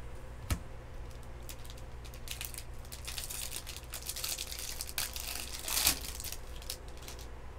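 Foil wrapper of a baseball card pack crinkling as it is handled and torn open, with a louder rip about six seconds in, after a single click near the start.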